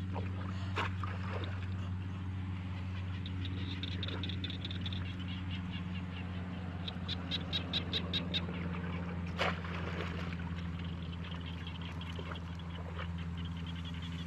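Shallow water sloshing as someone wades with woven bamboo fish traps, with a couple of sharp knocks, over a steady low hum. About seven seconds in, a small animal calls in a quick run of high pulses, about seven a second.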